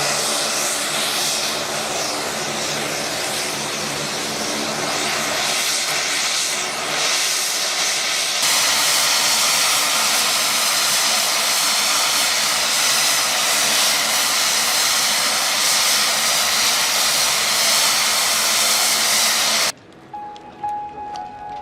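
Dornier 228's twin turboprop engines running, a steady whine and hiss over a low propeller drone. It grows louder about eight seconds in, then cuts off suddenly near the end as music begins.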